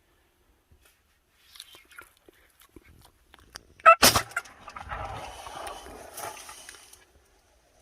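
A short high call, then a single very loud shotgun blast about four seconds in, killing a Gould's wild turkey. About three seconds of rustling and flapping follow as the shot bird flops on the ground, fading out.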